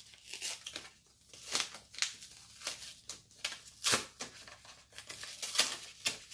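Paper rustling and crinkling as a small folded paper insert is handled and opened, in irregular sharp rustles, the loudest about four seconds and five and a half seconds in.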